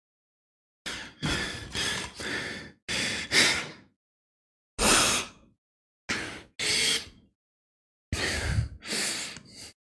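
A man breathing hard close to a headset microphone: a dozen or so sharp gasps and heavy sighs, mostly in quick pairs, with dead silence between them.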